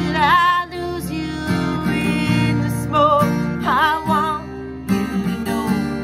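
A woman singing to her own strummed acoustic guitar, holding a few notes with vibrato.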